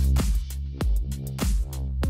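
Electronic background music with heavy bass and a steady beat.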